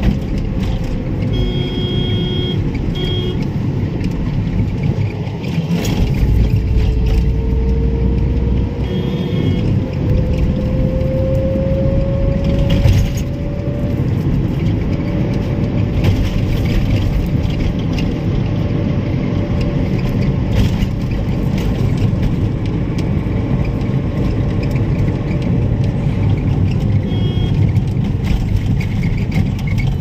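A car driving in traffic: steady tyre and engine noise, with the engine note rising slowly for several seconds as the car picks up speed. A couple of short high beeps sound about two seconds in.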